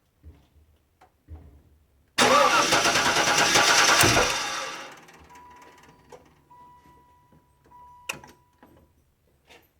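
A 1994 station wagon's engine cranking on the starter for about two seconds, then stopping without settling into a run: a no-start, typical of a missing spark. A faint steady high tone follows, with one sharp click near the end.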